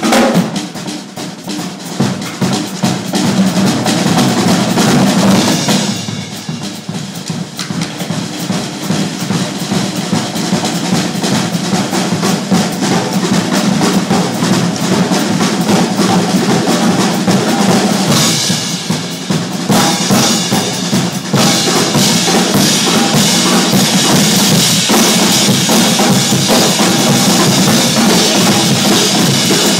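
Drummers playing fast, dense percussion with bass drum and snare, easing off briefly twice and then holding steady and loud through the last part.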